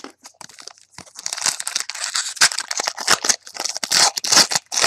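A trading-card pack wrapper being torn open and crinkled by hand: a few small clicks, then from about a second in a dense, continuous crackling.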